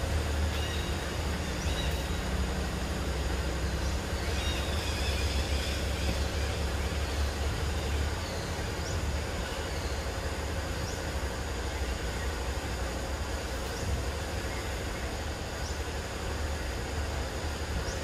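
Outdoor background noise: a steady low rumble under an even hiss, with a few short, faint high chirps.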